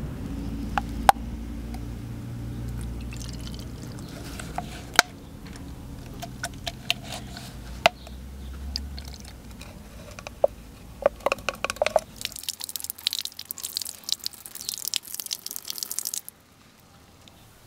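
Liquid dripping and trickling as it is poured from a cut plastic bottle into another bottle, with a few sharp clicks of handling. Then water runs from a tap over a small metal lure blade for about four seconds and stops suddenly.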